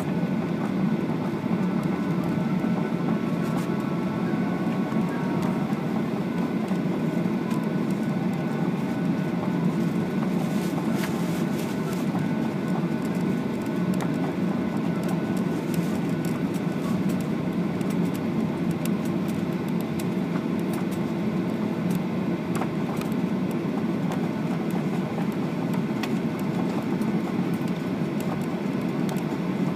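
Cabin noise of a Boeing 737 taxiing after landing: a steady low rumble from the engines at idle and the rolling aircraft. Faint scattered clicks and rattles come through, most of them about ten seconds in.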